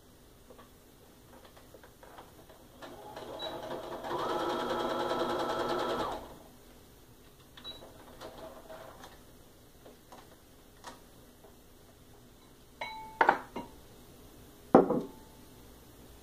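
Sewing machine stitching a quarter-inch seam in quilting fabric, running steadily for about three seconds before stopping. A few sharp clicks follow later, the loudest a pair near the end.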